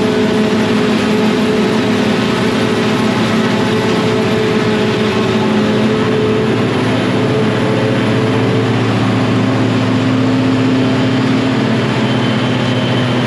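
John Deere 6910 self-propelled forage harvester running under load, chopping standing corn and blowing the chopped silage out its spout into a wagon: a loud, steady machine drone with several steady tones. A faint high whine comes in near the end.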